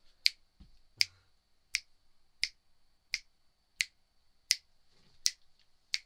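Fingers snapping in a steady rhythm, about three snaps every two seconds, over a faint steady high whine.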